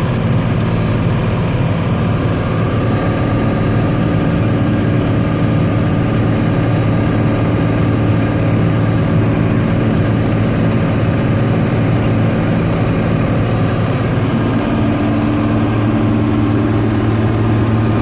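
Combine harvester running steadily while harvesting wheat: an even engine and machinery drone with several constant tones.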